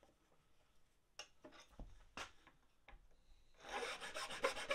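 A few light clicks and knocks as a bench vise is tightened. About three and a half seconds in, a round file starts rasping in quick, even strokes in a bolt hole of a cast epoxy resin spacer, elongating the hole.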